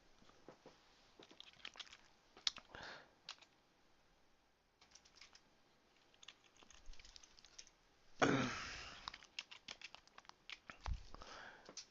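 Typing on a computer keyboard: scattered irregular key clicks while a search is entered. A brief louder rustle comes about eight seconds in.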